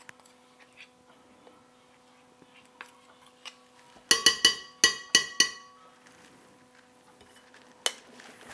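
A metal spoon clinking against a glass mixing bowl while scraping melted chocolate out of a measuring cup. There are about six sharp, ringing clinks within a second and a half near the middle, and one more click near the end.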